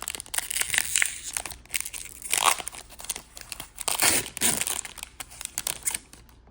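Foil trading-card booster pack wrapper being torn open and crinkled by hand, a dense irregular crackling that stops shortly before the end.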